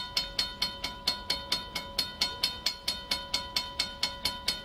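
Railroad crossing bell clanging steadily at about four to five strikes a second, warning of an approaching train.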